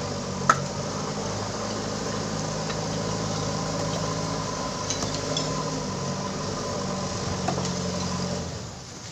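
JCB backhoe loader's diesel engine running steadily, dropping off near the end, with a sharp metallic knock about half a second in and a few lighter clicks.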